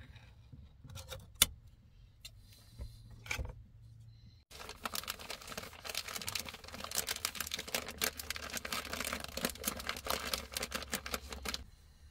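A few sharp clicks as the lid of a small food pot is worked open, then, from about a third of the way in, food frying in a hot pan on a gas hob: a dense crackling sizzle that stops shortly before the end.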